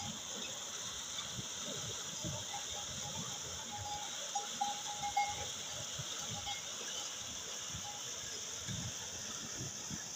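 Water pouring and splashing steadily from the tin buckets of a bullock-driven Persian wheel into its metal trough, with scattered low knocks. A short, broken high-pitched squeal sounds from about four seconds in for a couple of seconds.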